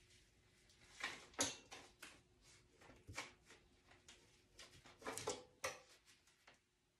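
Squeegee worked in short strokes over heat transfer vinyl on a sheet of glass, pressing it down against its paper: a series of faint scrapes and paper rustles, with a couple of brief squeaks about five seconds in.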